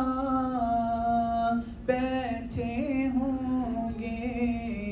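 Unaccompanied voice singing long held notes, breaking off briefly about two seconds in and then going on.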